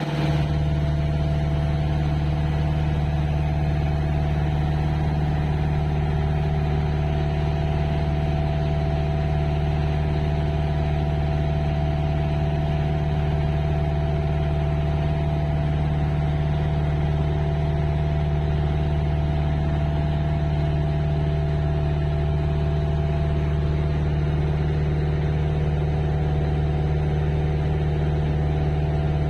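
An engine running steadily at an unchanging speed, a low even drone with no revving or let-up.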